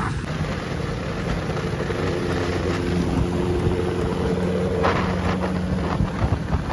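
Motorcycle engine running at a steady, even speed.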